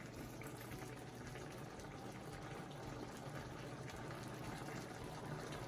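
Pot of tomato, onion and cashew sauce simmering on the stove, a faint steady bubbling.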